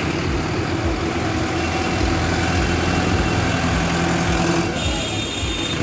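Mahindra tractor's diesel engine idling steadily.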